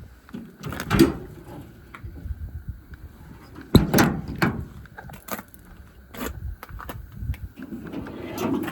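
A metal door on the service truck being opened and shut: latch clicks and several sharp knocks and slams.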